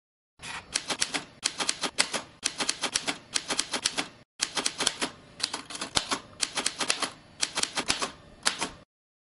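Typebar typewriter typing in short bursts of rapid clacking keystrokes, about one burst a second, each burst a word struck onto the paper, with brief pauses between them.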